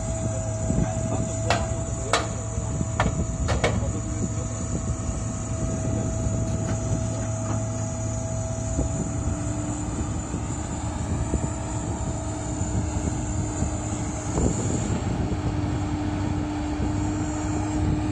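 Komatsu PC270 excavator's diesel engine running steadily under load while lifting and swinging a GRP pipe section, with a few sharp knocks in the first four seconds.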